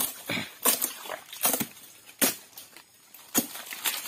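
Machete chopping at the spiny frond bases of a sago palm, sharp irregular strikes about one or two a second.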